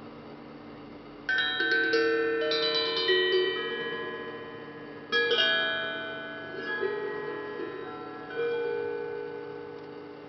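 Hamon, an iron folk instrument, being played: metal notes struck in quick clusters that ring on and slowly die away. A burst of several strikes comes about a second in, another about five seconds in, and softer single notes follow.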